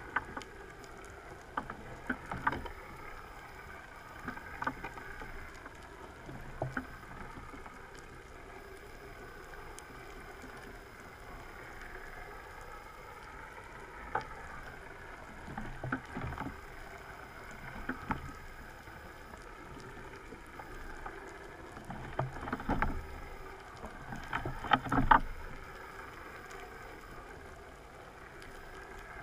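Muffled underwater ambience picked up through a camera housing: a steady wavering hum and noise, with scattered clicks and a few louder knocks, the loudest about five seconds before the end.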